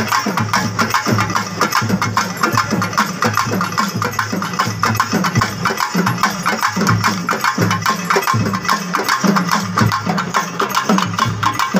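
Pambai drums played in a fast, unbroken drumming rhythm, dense rapid strokes with no pause.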